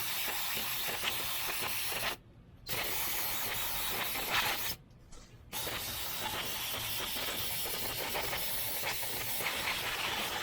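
Aerosol carburetor cleaner sprayed in long hissing bursts around a riding mower's carburetor, stopping briefly twice, about two seconds in and about five seconds in, then spraying on.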